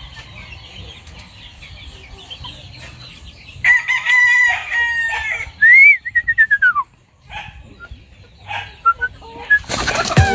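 A rooster crows once, a long cock-a-doodle-doo starting a little under four seconds in, with a held note and then a tail that rises and falls. A few short clucks follow. Music with a beat comes in right at the end.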